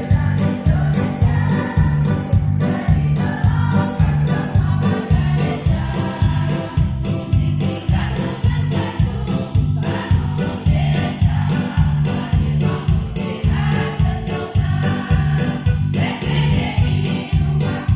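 Choir singing a song over an accompaniment with a steady beat.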